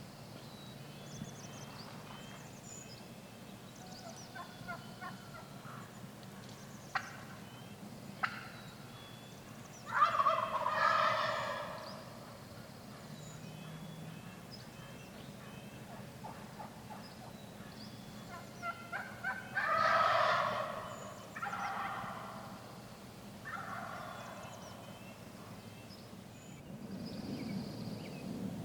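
Wild turkey gobbling: two loud gobbles about ten seconds apart, the second followed by fainter gobbles. Small songbirds chirp throughout, and two sharp clicks come shortly before the first gobble.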